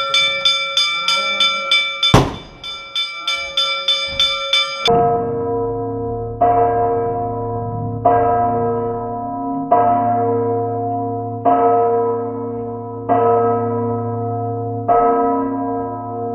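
Church bells rung rapidly at about four strokes a second, with one loud knock about two seconds in. About five seconds in this gives way to slower, deeper bell strokes, roughly one every second and a half to two seconds, each left ringing on.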